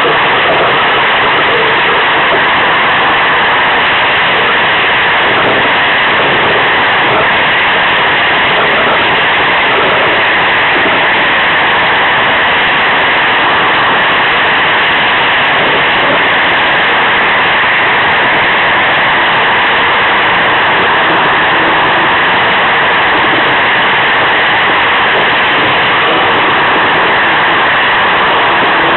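Iceboat sailing across the ice: a steady, loud rushing noise with no change in pitch.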